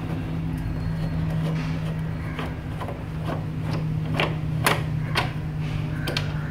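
Sharp metallic clicks and taps, about two a second, as screws are worked out of a water heater's sheet-metal outer casing and the bottom casing is freed. A steady low hum runs underneath.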